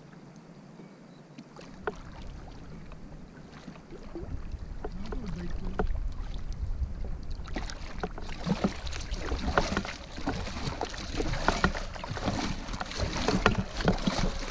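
Double-bladed paddle strokes splashing and dripping beside an inflatable kayak, with water slapping against the hull. The splashing is sparse at first and turns busy and louder about halfway through, over a low wind rumble on the microphone.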